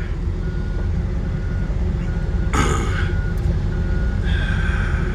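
John Deere 135G compact excavator running as it tracks off a trailer. Its diesel engine rumbles steadily while its travel alarm beeps a little faster than once a second. A short, sharp noisy burst comes about halfway through.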